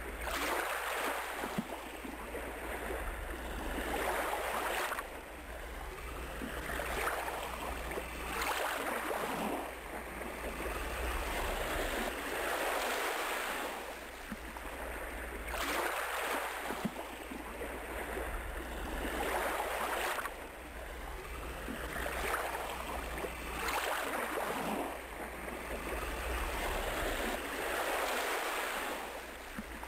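Ocean surf: a hiss of breaking waves that swells and fades every three to four seconds, with a steady low hum underneath.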